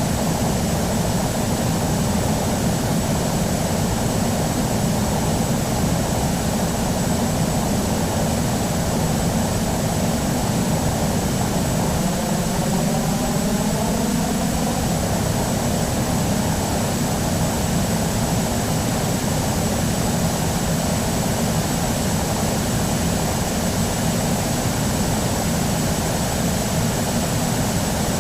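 Airbus A319 jet airliner's engines running with a steady, even noise, with a thin high whine throughout. About halfway through, a brief rising whine lasts a few seconds.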